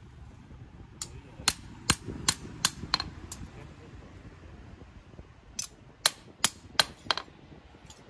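Hand hammer striking a steel knife blade on a small round steel anvil: light, ringing finishing blows to flatten the blade. There are two runs of about half a dozen blows each, two to three a second, with a pause of about two seconds between them.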